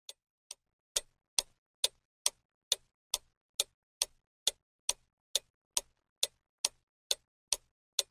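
Clock-like ticking of a countdown timer sound effect, about two ticks a second. The first few ticks are faint, then they go on steady and even.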